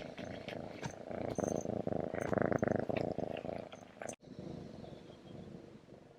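A domestic cat purring close up, loudest in the middle, breaking off briefly about four seconds in and then continuing more faintly.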